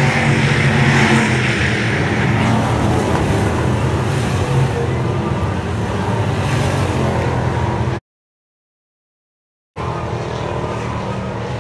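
Stock car engines running at racing speed, loud and continuous, with cars swelling past now and then. The sound cuts out completely for under two seconds about eight seconds in, then the engines resume.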